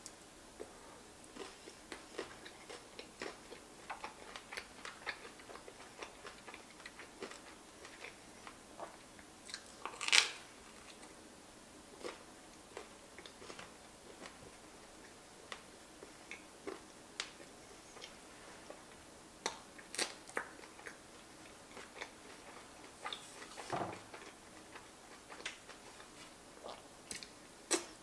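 Close-miked chewing and biting of a Nutella-and-strawberry pizza slice: many soft, wet clicks and smacks of mouth and lips, with one louder bite about ten seconds in.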